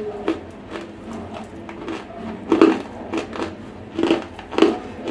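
Close-miked dry crunching of semi-roasted clay being bitten and chewed. There is a bite just after the start, then sharp crunches about every half second, louder in the second half.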